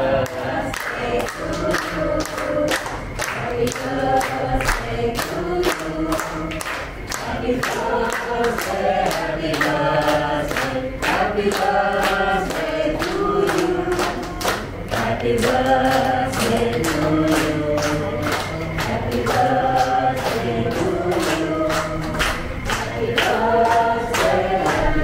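A group of people singing together in chorus, with a steady beat of about two strokes a second running under the voices.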